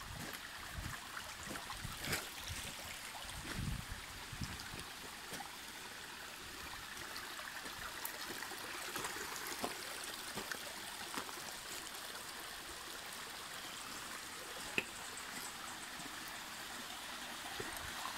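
Shallow, clear creek flowing and trickling over and between rocks: a steady rush of water. A few low thumps come in the first few seconds, and there is one sharp click near the end.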